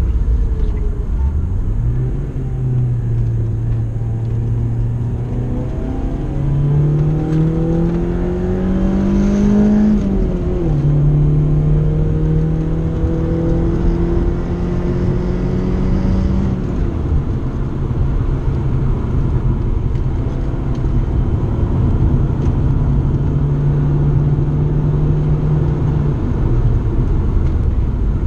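BMW E36 3 Series engine heard from inside the cabin. It revs with a rising pitch, drops sharply at a gear change about ten seconds in, then holds a steady note for about fifteen seconds before easing off near the end.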